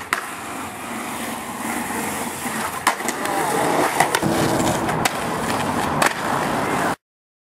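Skateboard wheels rolling on concrete and asphalt, with sharp clacks of the board from tricks: one just after the start, then four more about a second apart from about three seconds in. The sound cuts off suddenly near the end.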